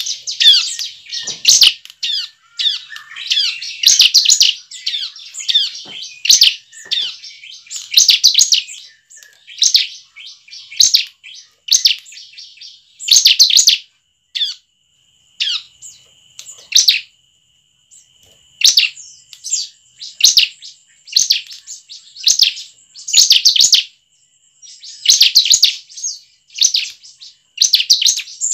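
Caged bar-winged prinia (ciblek) calling in repeated short bursts of rapid, sharp, high chirping notes, roughly one burst every second or two. A faint thin steady whistle-like tone runs under the calls from about halfway through.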